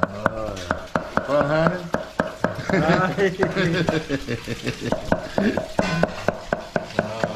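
Large cleaver chopping freshwater snail meat on a thick wooden chopping block: quick, even knocks, about four a second, as the meat is minced.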